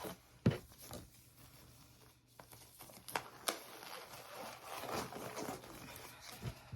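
Disposable exam gloves being pulled on and handled: soft rustling of the thin gloves with a few short, sharp clicks scattered through.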